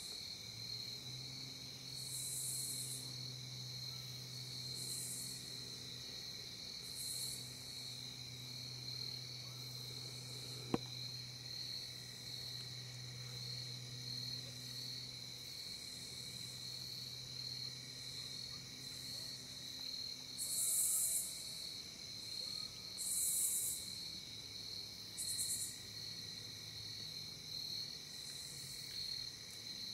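Evening chorus of crickets and other insects: a steady high trill without a break, with louder rasping insect calls repeating every two seconds or so, strongest a little after the middle.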